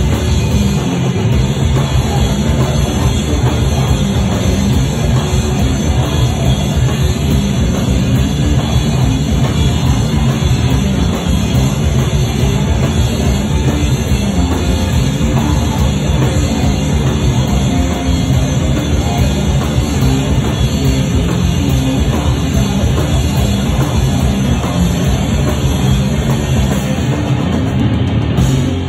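Sludge metal band playing loud live: heavily distorted guitar and bass over a pounding drum kit, with no break.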